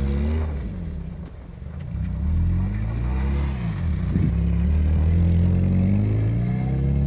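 Škoda Felicia's engine revving up and down in repeated rising and falling surges as the car slides on snow-covered ice, with a single short knock about four seconds in and the revs climbing again near the end.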